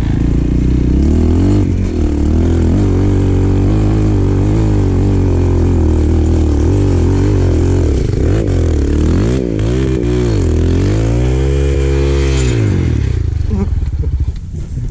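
Enduro motorcycle engine revving hard on a steep hill climb. The revs rise and fall with the throttle, swing quickly up and down near the end, then drop away about 13 seconds in as the climb fails to make the top.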